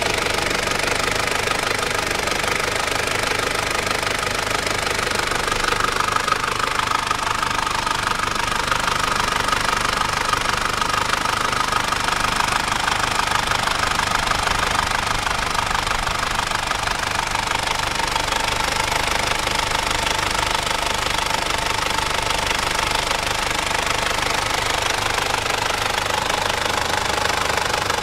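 Mitsubishi 4M40 2.8-litre four-cylinder diesel idling steadily with its diesel clatter, heard close up in the open engine bay.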